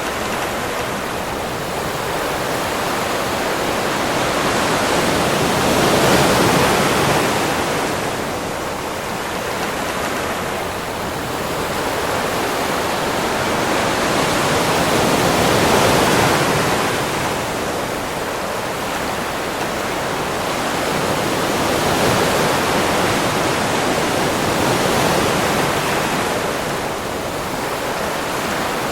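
Ocean waves on a beach: a steady wash of surf that swells and eases every several seconds as waves roll in and break.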